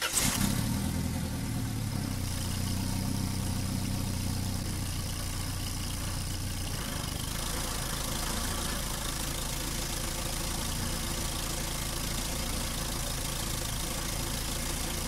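Toyota Tarago van's engine idling steadily, just after being started.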